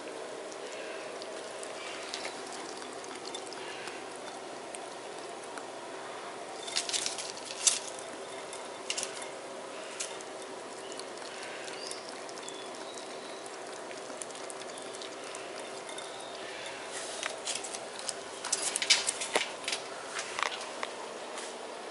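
A steady low hum, with two spells of light scratching and clicking, about seven seconds in and again near the end.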